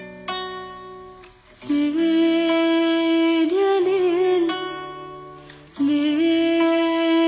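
Music from the opening of an Arabic song: plucked string notes at first, then a long held melodic line with a wavering pitch coming in about two seconds in and again about six seconds in.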